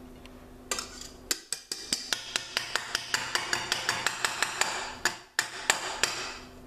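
Wire balloon whisk from a stand mixer knocked and scraped against the rim of a stainless steel mixing bowl to shake off stiff-peaked whipped egg whites: a quick run of sharp metallic taps, about four a second, starting about a second in.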